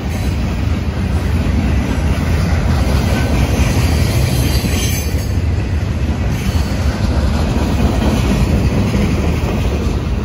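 Freight train of boxcars rolling past, a steady loud rumble of steel wheels on the rails.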